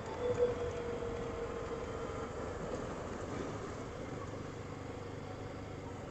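Honda ATV engine running steadily, a little louder about half a second in.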